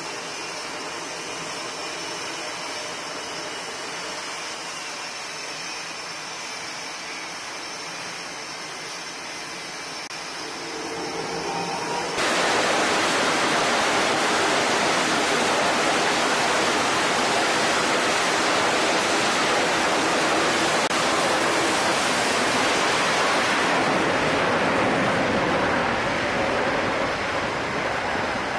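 Jet engine noise on a carrier flight deck: a steady rushing noise with a thin whine, jumping suddenly about twelve seconds in to a much louder, even rush that eases off near the end.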